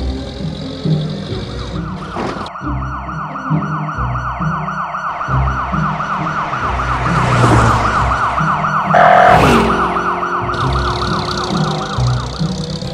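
Police car siren in a fast yelp, its pitch sweeping up over and over several times a second, starting about two seconds in and stopping shortly before the end, over a low rumble. A louder rushing whoosh cuts across it about nine seconds in.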